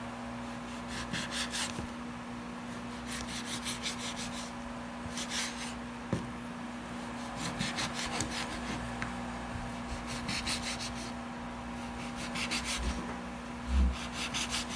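A knife sawing through marinated pork and scraping a wooden cutting board, in short runs of quick back-and-forth strokes every couple of seconds. A steady low hum runs underneath, and there is a dull knock on the board near the end.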